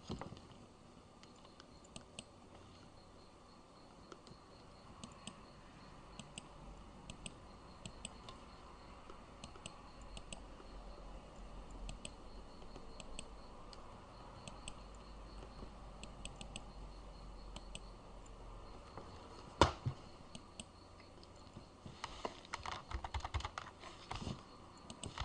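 Scattered keystrokes and clicks on a computer keyboard, with one louder click about three-quarters of the way through and then a run of fast typing near the end.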